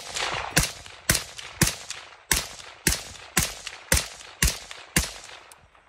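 Sig SPEAR LT rifle firing through a Sig SLX 556 QD suppressor, with the rifle's gas setting on suppressed: about ten evenly paced shots, roughly two a second, each followed by a brief echo.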